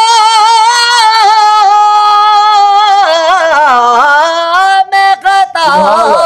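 A man singing a naat unaccompanied in a high, ornamented voice. He holds a long wavering note, then slides down through a run of notes, with a few short breaths near the end.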